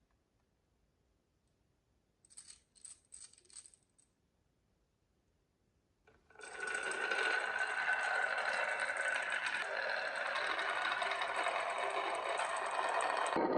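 Marbles on a toy marble run: four quick light clicks, then after a pause a dense, steady clatter of many marbles rolling and knocking along the track, starting about six seconds in.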